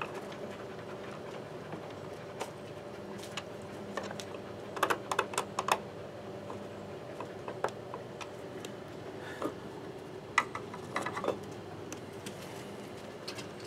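Light clicks and taps of a plastic security camera being handled and adjusted on its wall mount, with a quick cluster of clicks about five seconds in and another around ten to eleven seconds, over a faint steady hum.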